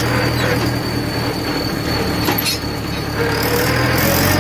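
Tractor engine running under way with a turbo whistle fitted in its exhaust, giving a steady high-pitched whistle over the engine's rumble, like a turbocharged engine. The engine note rises slightly near the end.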